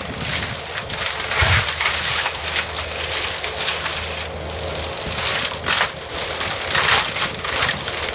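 Forestry mulcher head on a compact loader shredding brush and small trees: the loader's engine runs steadily under a continuous crackle of wood being chewed up, with several louder bursts of splintering.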